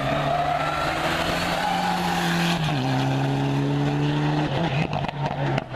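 Rally car engine running hard on a closed stage, holding a steady high note. The pitch steps down a little under halfway. A run of sharp pops and crackles comes near the end.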